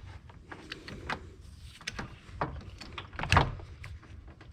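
Scattered clicks and knocks of hand work with a hydraulic crimp tool as a battery cable terminal is set in its die, the loudest about three seconds in.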